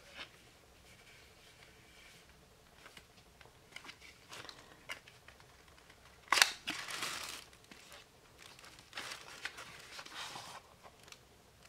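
Cardboard tarot deck box being handled and opened by hand: light scrapes and taps of card, a sharp knock about six seconds in followed by a second of rustling, and more rustling near the end.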